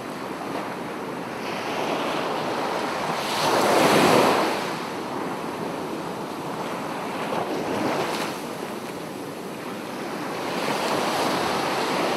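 Sea waves breaking and washing up over sand and rocks, swelling loudest about four seconds in and again, more softly, near eight seconds. Wind buffets the microphone.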